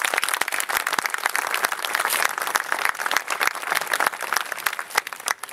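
Audience applauding, a dense stream of claps that thins out near the end.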